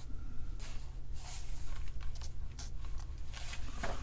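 Paper pages of an old kit manual being handled and turned: a run of dry rustles and flicks starting about half a second in, quicker and louder near the end as pages are flipped, over a steady low hum.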